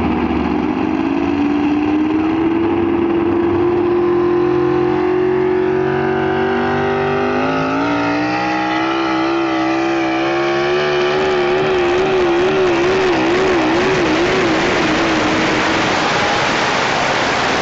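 Pickup truck engine at full throttle pulling a sled, its pitch climbing over the first few seconds and then holding high. It drops briefly about halfway through and climbs again, then wavers up and down before giving way to a rougher, noisier sound near the end.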